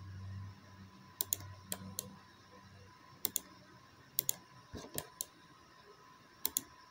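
Computer mouse clicking: sharp, light clicks scattered through, several in quick pairs, as points are placed and the view is moved in a CAD program. A faint low hum underlies the first few seconds.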